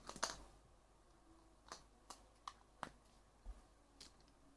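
Near silence broken by a few faint, scattered clicks and taps, about half a dozen, from Play-Doh tools and plastic moulds being handled.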